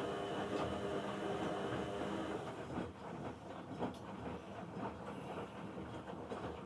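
Bauknecht WA Aquaton 1400 front-loading washing machine (about 2002) washing on a 60 °C cottons programme. The drum motor hums steadily, then stops about three seconds in, leaving irregular light clicks and knocks.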